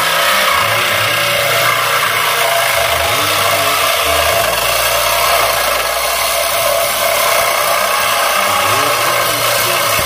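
Cordless power tool cutting through a car's steel exhaust pipe at the catalytic converter, running continuously at a steady pitch and level.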